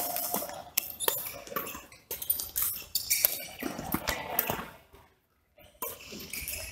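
Badminton rackets striking a shuttlecock in a fast doubles rally: sharp cracking hits, often less than a second apart. The sound drops out for about half a second near the end.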